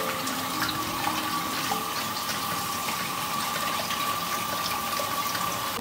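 Kitchen tap running into a sink while hands rinse and rub small plums (göyəm) in a bowl of water, a steady stream with small splashes and ticks.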